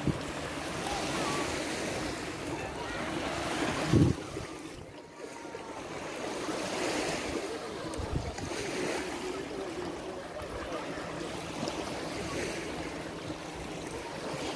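Small Adriatic Sea waves washing in on a sandy shore, the surf noise swelling and easing every few seconds, with wind buffeting the microphone. A brief loud low thump about four seconds in is the loudest moment.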